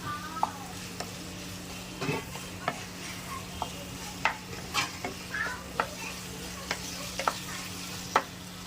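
Chicken and vegetable filling sizzling in an oiled pan over a high gas flame while a spoon stirs it, scraping and clicking against the pan at irregular moments. A faint steady low hum runs underneath.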